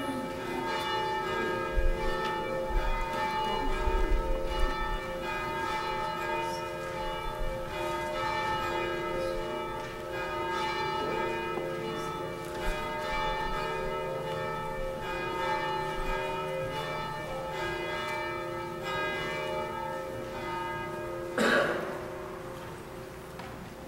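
Church bells ringing, several overlapping tones sounding on and slowly dying away toward the end. A brief sharp noise cuts in near the end.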